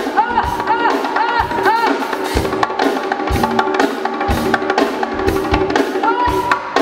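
R&B music with a steady drum-kit beat and a melody sliding up and down in repeated arcs.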